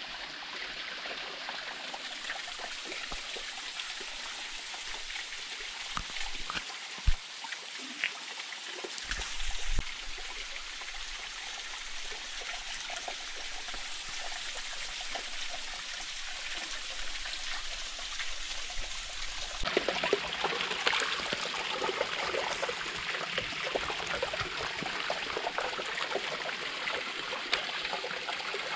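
Small waterfall trickling and splashing down a wet rock face: a steady hiss of falling water that grows louder about two-thirds of the way through. A few brief low knocks come about a quarter of the way in.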